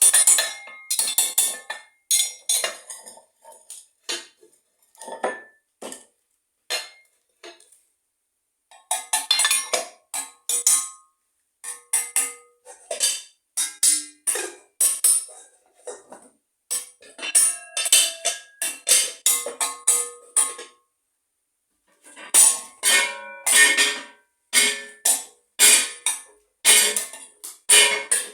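Bells struck in quick, uneven runs, each strike a short, bright ring of several tones. The ringing pauses briefly twice, about eight seconds in and again about twenty-one seconds in.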